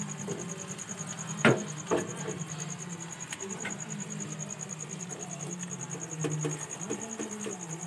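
A steady, evenly pulsing insect trill with a low steady hum beneath it. Two sharp knocks come about a second and a half in, half a second apart.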